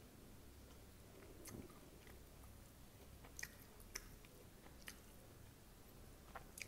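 Faint, close-miked chewing of poha, flattened rice topped with crunchy sev and peanuts, with a handful of short sharp clicks and crunches spread through it.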